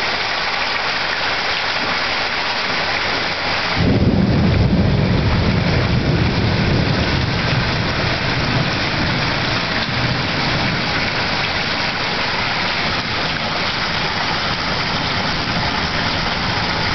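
Heavy rain pouring steadily. About four seconds in, a clap of thunder breaks into a deep rumble that dies away over several seconds.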